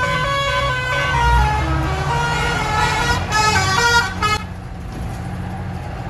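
Imported Indian musical bus horn playing a tune of quick, changing notes, cutting off about four seconds in, over the steady low running of the bus's engine.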